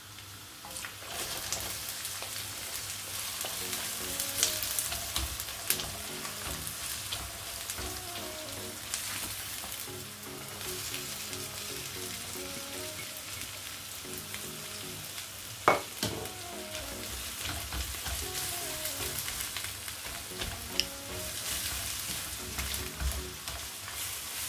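Chopped red onion tipped into hot oil in a nonstick wok, sizzling as it fries and stirred with a silicone spatula. The sizzle starts about a second in, and there is one sharp knock about two-thirds of the way through.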